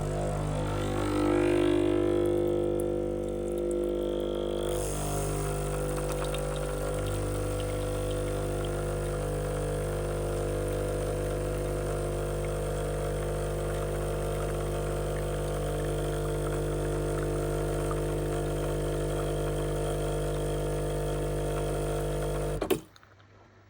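Sage espresso machine's vibratory pump humming steadily as it pumps water through the coffee, then shutting off with a click near the end.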